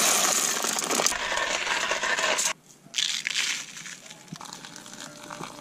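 Whole coffee beans poured into a clear plastic grinder hopper: a dense rattling that cuts off abruptly about halfway through. After it comes quieter rustling as ground coffee is tipped into a paper filter.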